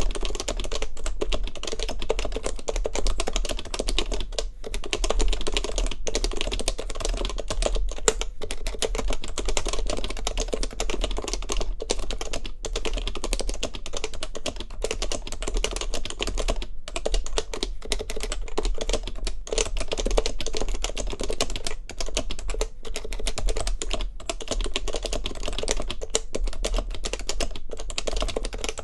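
Fast, continuous typing on a custom keyboard with stock HHKB Professional Classic Topre switches, an ABS plate and stock keycaps: a dense run of keystrokes with brief pauses every few seconds.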